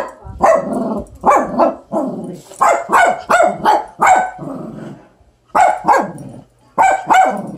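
Dog barking excitedly in quick runs of short barks, about a dozen, with a pause of about a second past the middle: barking at a lizard seen through the window glass.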